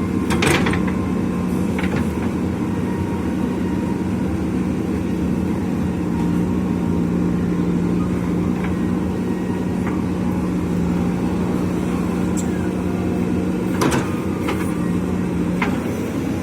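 JCB backhoe loader's diesel engine running steadily under work, with a sharp knock about half a second in and another near the end, plus a few fainter clicks.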